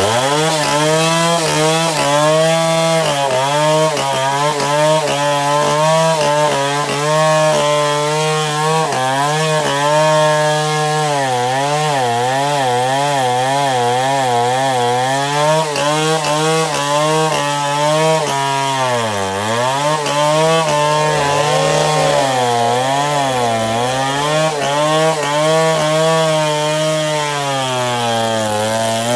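Chainsaw running under load while cross-cutting a baobab trunk, its engine pitch wavering up and down as the chain bites into the wood and dipping sharply about two-thirds of the way through.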